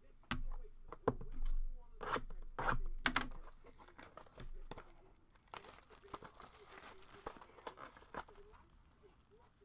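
A trading card pack's wrapper being torn open and crinkled, with several sharp clicks in the first few seconds and a longer crackly rustle near the middle.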